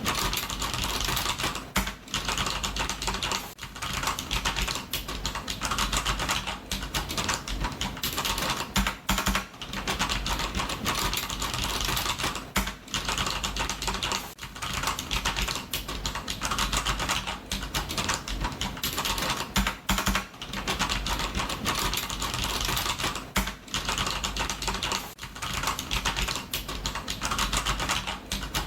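Computer keyboard typing: fast, continuous runs of key clicks with brief pauses every second or two.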